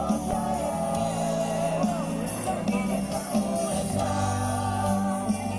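Music with a singing voice over sustained low notes.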